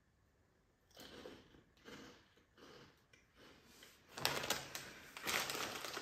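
Crinkling plastic snack wrapper being handled and torn open. It comes in a few soft rustles at first, then turns into loud, dense crackling from about four seconds in.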